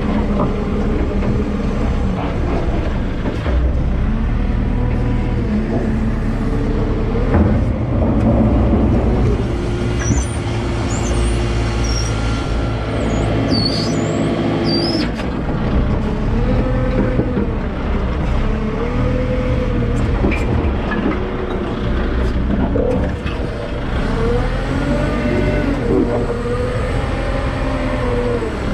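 JCB 531-70 telehandler's diesel engine running, heard from inside the cab, a steady low drone whose pitch repeatedly rises and falls as the machine is driven and manoeuvred.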